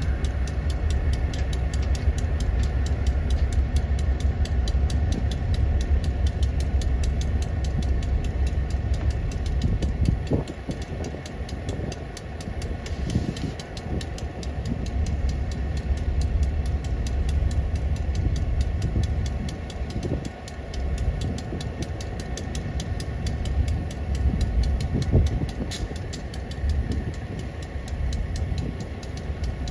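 Diesel locomotive engine idling with a steady low rumble, easing off briefly twice.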